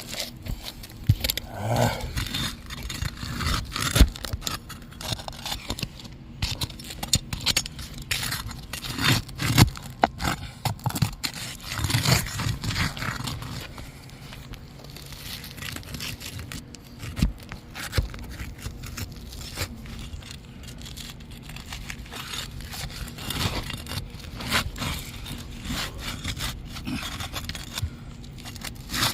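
Asphalt roofing shingles being pried up and worked loose: irregular scraping, crackling and tearing as the sealed tabs pull apart, with scattered sharp knocks.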